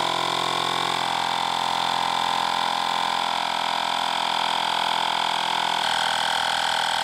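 Fanttik X8 battery-operated portable tire inflator running, its small air compressor pumping up a motorcycle tire from about 31 toward 35 PSI. A steady, not too loud mechanical hum with a strong mid-pitched tone.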